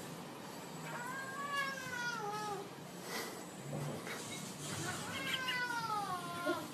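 A cat meowing twice, each a long drawn-out call that falls in pitch.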